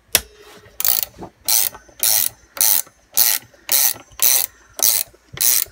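Ratchet spanner being worked back and forth in short strokes, clicking in quick bursts about twice a second, as it turns a bolt that draws the centre of a rubber engine-mount bush out of its housing.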